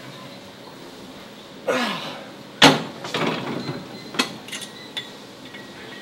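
A short sound falling in pitch, then a sharp metal clank from a gym row/rear-delt machine's weight stack, followed by rattling and a few lighter clicks.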